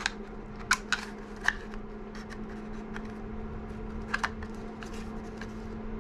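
Scissors snipping through a cardboard matchbox to cut out its striker strip: a few sharp snips in the first second and a half, a couple more about four seconds in. A steady low hum runs underneath.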